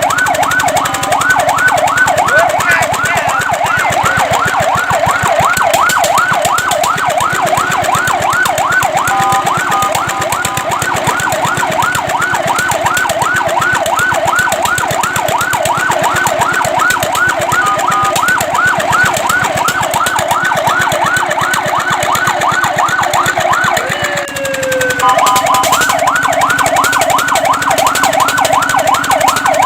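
Fire truck's electronic siren wailing in a fast yelp, about four rising-and-falling sweeps a second. It is broken a few times by short steady multi-note tones, and near the end it winds down briefly before the yelp starts again.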